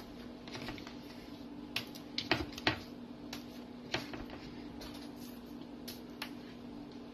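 Raw fish fillets being flipped and laid down on an aluminium sheet pan: scattered soft slaps and taps, the loudest two a little over two seconds in, over a steady low hum.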